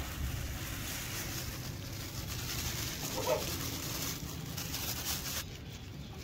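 Plastic bag crinkling as it is opened and grain is poured from it into a clay dish, stopping about five seconds in. A brief bird call sounds about three seconds in.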